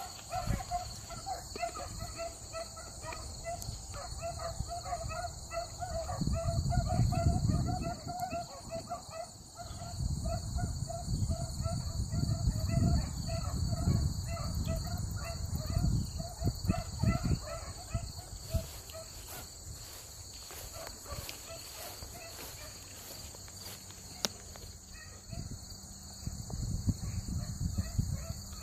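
Hounds giving voice in a steady run of barks while running a rabbit, the baying fading out about two-thirds of the way through. Gusts of wind rumble on the microphone.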